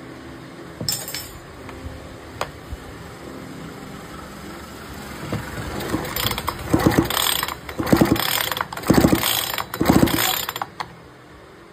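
Recoil starter of a 62cc two-stroke chainsaw pulled four times about a second apart, the rope whirring and the starter pawls ratcheting on each pull. No engine catches after the pulls. A couple of light clicks come before them.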